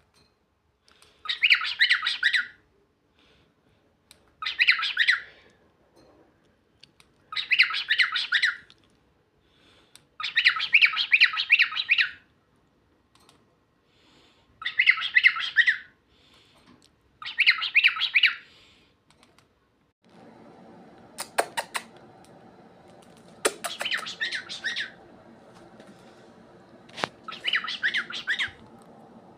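Pet cockatiel vocalizing in short bursts of about a second, around eight of them, spaced two to three seconds apart. About two-thirds through, a steady hum comes in underneath, with a few sharp clicks.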